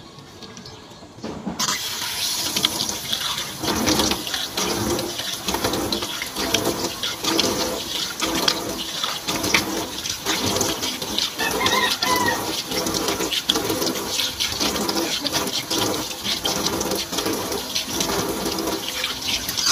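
Tap water running into a sink, with repeated splashing as a face is rinsed by hand. It starts about a second and a half in.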